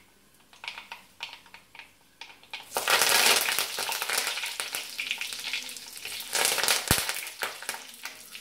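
Mustard seeds crackling in hot sesame oil in a clay pot, then a sudden loud sizzle about three seconds in as curry leaves go into the oil, sizzling on unevenly while a wooden spatula stirs. One sharp knock comes near the end.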